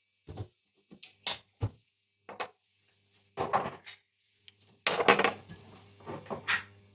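A run of short knocks and clinks from kitchen handling: cookware at the stove, then spice jars being picked from a cupboard shelf, with a denser cluster of clinks about five seconds in.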